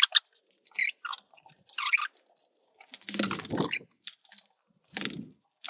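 Irregular crinkling and rustling handling noises in short bursts, with a longer, fuller rustle about three seconds in and another shorter one about five seconds in.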